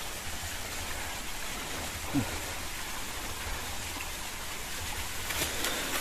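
Steady hiss of running water from a small mountain spring. About two seconds in there is one short low falling sound.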